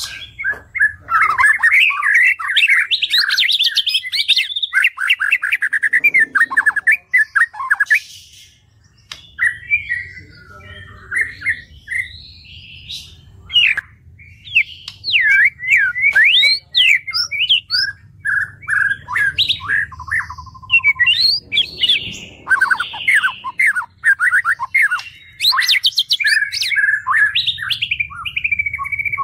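White-rumped shama (murai batu) singing a rapid, varied song of sweeping whistles and fast trills, pausing briefly about a third of the way and again about halfway in, over a faint steady low hum.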